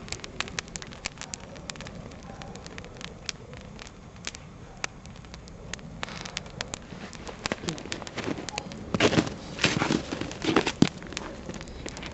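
Campfire of dry spruce branches burning and crackling, with frequent sharp pops scattered irregularly. A denser run of louder pops and thumps comes about nine to eleven seconds in.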